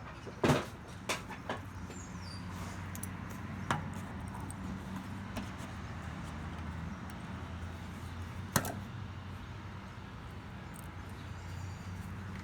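A few sharp clicks and knocks of tools and bike parts being handled during brake-caliper work, over a steady low hum. The loudest knocks come about half a second in and again near the end.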